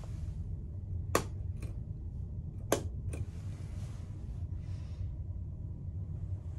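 Wall rocker switch for the cabin's announcement speaker clicked twice, about a second and a half apart, each sharp click followed by a fainter one, over a steady low hum.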